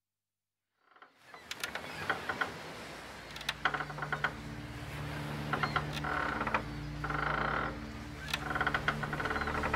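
Creaking of a wooden sailing ship's timbers and rigging, with sharp clicks, fading in from silence about a second in. A low, steady music drone builds underneath from about three seconds.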